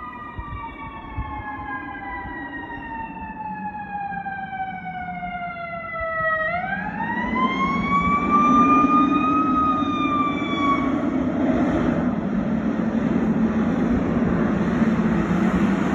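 Fire truck siren wailing: one slow tone sliding down in pitch, then swinging back up about six and a half seconds in and dying away around eleven seconds. Meanwhile the truck's engine and road noise grow steadily louder as it draws near.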